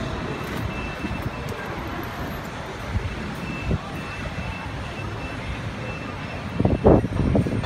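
Steady city street traffic noise, with a short louder swell of sound near the end.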